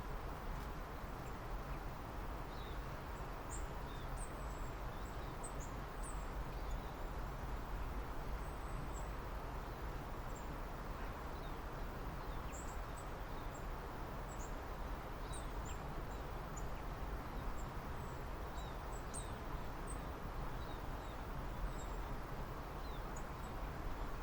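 Small birds calling from a distance over a steady background hiss: many brief, high, thin chirps and short notes, scattered throughout.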